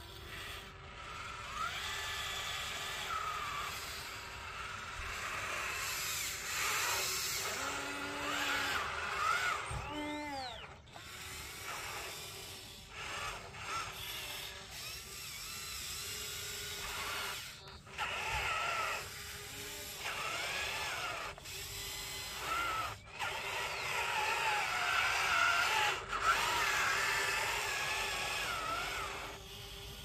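Small electric motors and gearboxes of Huina RC construction machines whining, the pitch rising and falling as they are throttled up and down, with a few brief stops.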